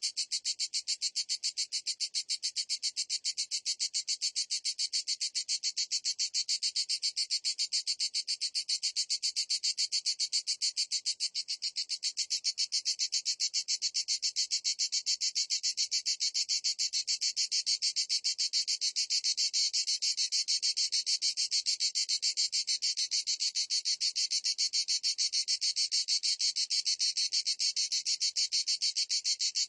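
Cicada calling: a steady, rapid, high-pitched pulsing buzz that holds unbroken.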